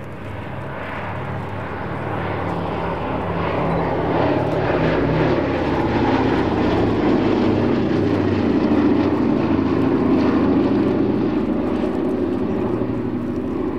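The four Wright R-1820 Cyclone nine-cylinder radial engines of a Boeing B-17G Flying Fortress running steadily as the bomber flies past. The sound grows louder to a peak about two-thirds of the way through, then fades as the aircraft banks away.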